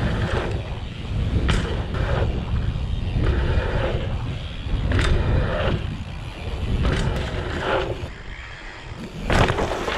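Dirt jump bike rolling over packed dirt trails and jumps, heard from a camera on the bike: a constant heavy rumble of tyres and wind on the microphone, broken by several sharp knocks from landings and bumps.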